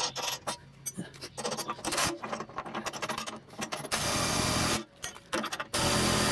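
Impact wrench running in two bursts of about a second each, driving the grab hook's mounting bolts home, the second starting near the end. Before them, light metallic clicks and rattles of the hook and bolts being handled.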